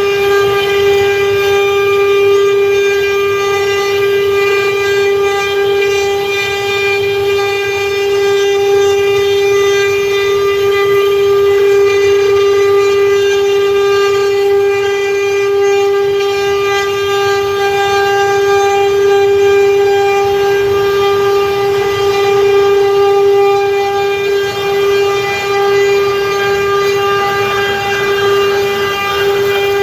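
CNC wood router spindle running at a constant speed, giving a steady whine that holds one unchanging pitch over a low machine rumble.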